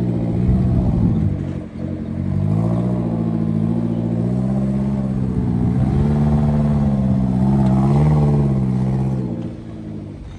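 Suzuki Jimny JB74's 1.5-litre four-cylinder engine revving as it drives over loose sand, its pitch rising and falling a little and easing off near the end.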